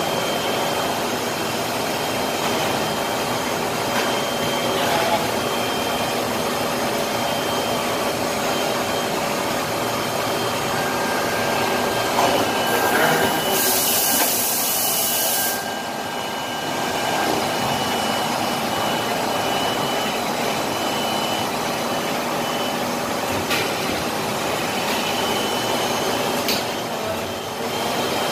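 Steady running noise of shoe-factory machinery around a rotary shoe-making machine, with a thin steady high tone. A two-second hiss comes about halfway through, and a few faint clicks follow near the end.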